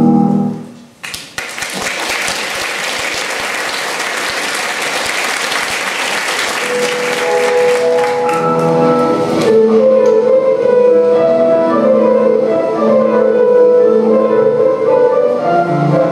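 The music stops, and about a second later an audience applauds for roughly eight seconds. The next piece of dance music comes in while the clapping is still going and carries on alone once the applause dies away, a little past halfway through.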